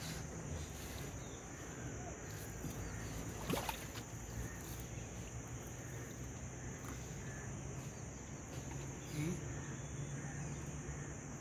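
Steady high-pitched chirring of crickets, with faint rustling and a few small clicks from a nylon fishing net being worked off a catfish by hand.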